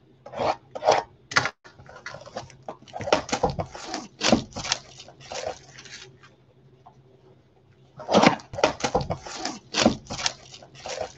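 A cardboard baseball card blaster box being torn open by hand, with irregular crinkling and tearing of the packaging. It stops for about two seconds midway, then starts again.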